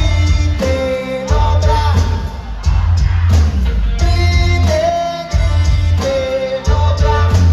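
Live grupera band playing: a male lead vocal sung over drum kit, electric guitar and a heavy pulsing bass line.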